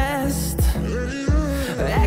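Background music with a steady beat: deep bass drum hits that drop in pitch, about two a second, under a held bass and melody.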